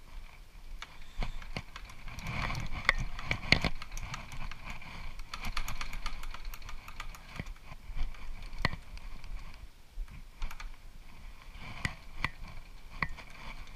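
Metal lathe's slide handwheels being turned by hand, giving irregular metallic clicks and knocks, a cluster of them about two to four seconds in, over a steady high hum.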